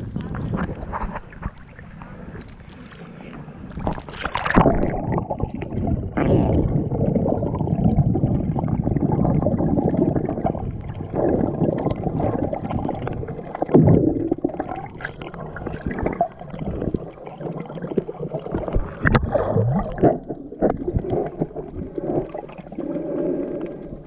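Muffled underwater water noise: irregular sloshing, gurgling and bubbling from a snorkeler swimming close by, with several louder knocks.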